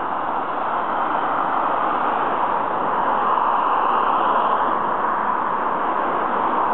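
Steady rushing noise of road traffic on the street, slowly growing a little louder.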